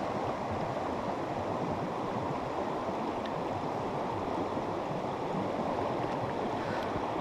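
Creek running high after days of rain: a steady rush of moving water.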